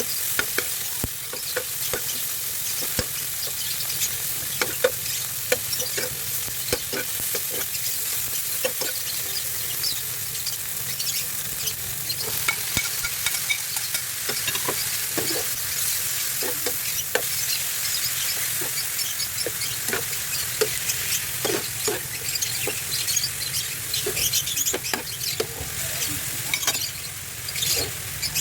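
Food sizzling in oil in a frying pan, with a spatula stirring and scraping against the pan in frequent short clicks, as the bitter melon dish is sautéed.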